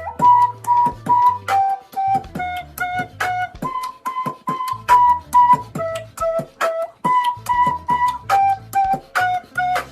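Music: a flute-like melody of short held notes over a steady beat of sharp percussive hits and a low bass line.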